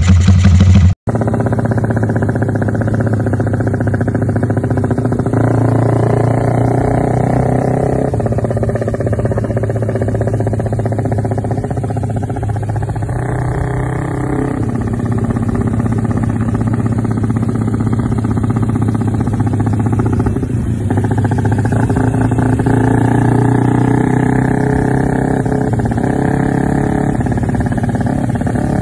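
Motorcycle with a loud aftermarket BSS exhaust being ridden, its engine running at fairly steady revs that rise and fall a little every several seconds. It is preceded by a louder burst from another, parked bike's exhaust that cuts off abruptly about a second in.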